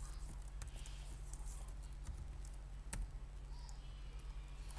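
Scattered computer keyboard key clicks, a few in the first second and one sharper click about three seconds in, over a steady low hum.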